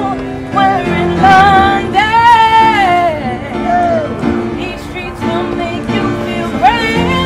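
A woman singing a ballad live, accompanying herself with chords on an upright piano. She holds one long note about two seconds in, then lets it fall away.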